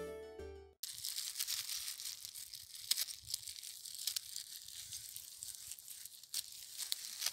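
Harpsichord-like background music cuts off under a second in; then a gloved hand picks young bladdernut shoots off a twig, with crisp plastic crinkling, twig rustle and a few small sharp snaps.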